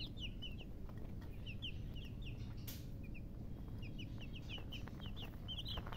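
Baby chicks peeping: many short, high chirps in quick runs, over a steady low background rumble.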